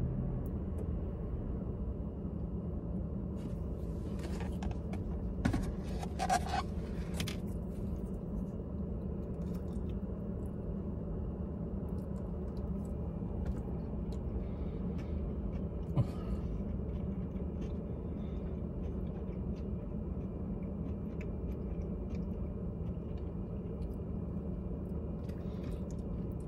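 Steady low hum of a car interior, with a cluster of sharp plastic clicks and crackles from a fork and takeout container about five seconds in, a single click later, and quiet chewing.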